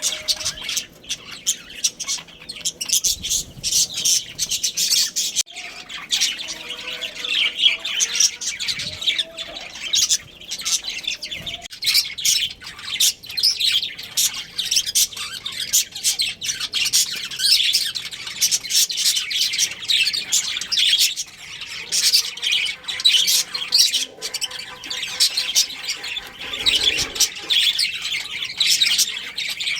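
Budgerigars chirping and chattering, many quick high calls overlapping without a break, with the odd squawk.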